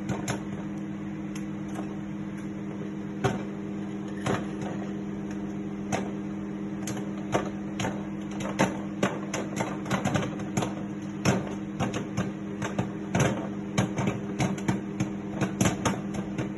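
DEXP MR-81 microwave oven running with a steady hum, overlaid by irregular sharp clicks and pops that come more and more often from about halfway through.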